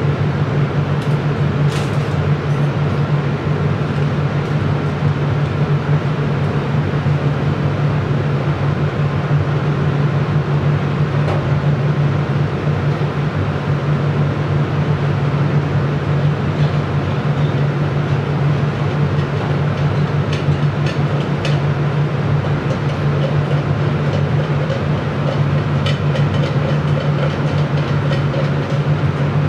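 Biosafety cabinet's blower fan running with a steady low hum and an even rush of airflow, with a few faint clicks.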